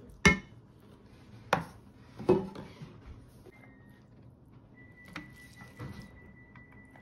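Wooden spatula knocking and scraping against a frying pan and a metal lunch box as fried rice is scooped out: three sharp knocks in the first two and a half seconds, then softer scrapes and taps. A faint steady high tone comes in about halfway through.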